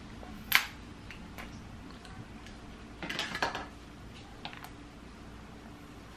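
Metal scissors clicking and scraping against a sealed plastic honeycomb package as it is pried open: one sharp click about half a second in, a short run of clicks and crackles around three seconds in, then a few light ticks.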